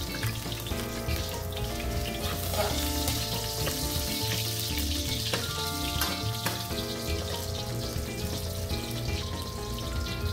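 Cubed carrots frying in hot oil in a wok with a steady sizzle, stirred a few times with a ladle. Background music plays underneath.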